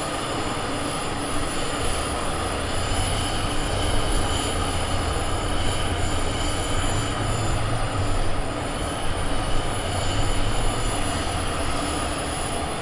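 Steady running noise of flight-line machinery during aircraft refuelling: a constant high-pitched whine over a low rumble that swells a little through the middle.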